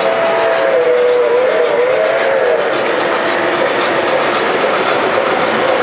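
Model train passenger cars rolling past on metal track with a steady rumble of wheels. Over it a two-tone model train whistle sounds with a slightly wavering pitch and fades out about two and a half seconds in.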